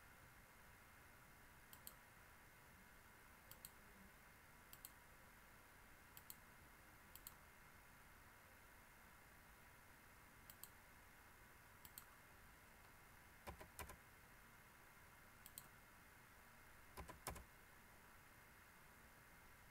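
Sparse clicks of a computer mouse, about a dozen, some in quick pairs or short clusters, over a faint steady hum and hiss.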